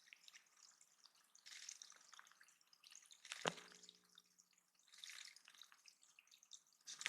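Faint water dripping and splashing in a small backyard bird pond, in a few soft spells. About halfway through comes one sharper plink with a short ringing tone.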